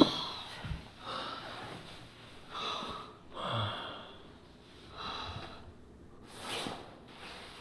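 A person breathing heavily, about five loud breaths roughly a second and a half apart, with a sharp click at the start.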